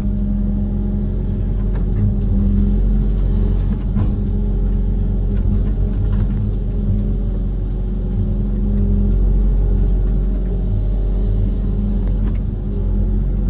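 Diesel engine of a Kobelco SK130 amphibious excavator running steadily at a constant pitch, with a few faint knocks.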